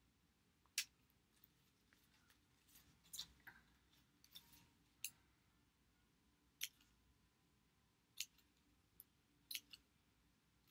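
Small orange-handled scissors snipping construction paper: about ten short, separate snips at irregular intervals, each a quick trimming cut into the paper's edge.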